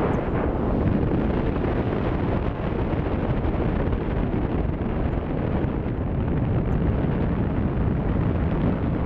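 Wind rushing over the microphone during paraglider flight: a steady, loud buffeting noise.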